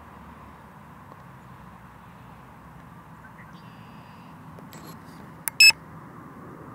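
A single short, loud electronic beep from the drone's remote controller about five and a half seconds in, just after a faint click, over a steady low background noise.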